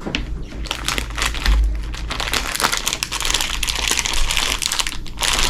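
Plastic snack wrapper crinkling as it is handled, a dense, irregular crackle.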